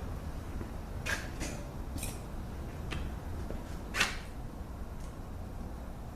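A few light clicks and knocks of metal transmission parts being handled on a workbench, the loudest about four seconds in, over a steady low hum.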